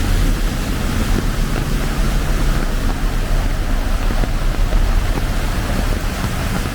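Heavy tropical rain and flowing floodwater making a loud, steady rushing noise, with a low rumble underneath.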